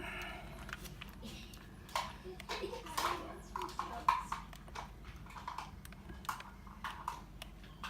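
Small flat screwdriver prying at the clips of a PS4 DualShock 4 controller's plastic shell: an irregular run of sharp plastic clicks with short squeaks and creaks, the clips being forced loose.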